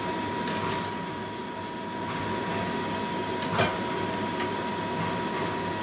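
Kitchen range hood fan running with a steady hum and a constant whine, with a few light clinks of cookware being handled at the stove.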